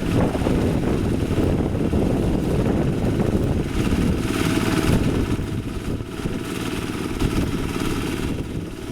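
Diesel engine of a Quick H-140R light rice harvester running steadily, a little quieter in the second half.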